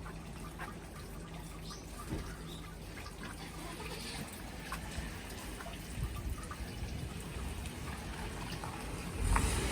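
Dripping and trickling water on a wet, snowy street: scattered small drips over a steady wet hiss, with a low rush swelling near the end.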